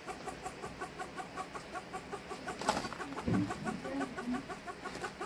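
A hen clucking in a rapid, even rhythm, with one sharp knock about two and a half seconds in.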